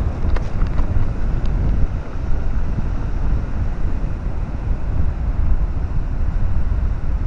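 Strong wind buffeting the microphone: a steady low rumble that swells and dips with the gusts. A few faint ticks come in the first second and a half.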